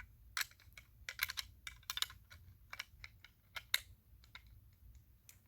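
A quick, irregular run of light clicks and taps from the small metal and plastic parts of a 1/32 scale diecast toy car being handled and fitted together.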